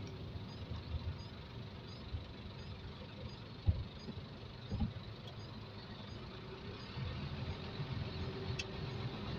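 Truck engine running with road noise, heard from inside the cab while the truck drives slowly. There are two short low thumps, about four and five seconds in.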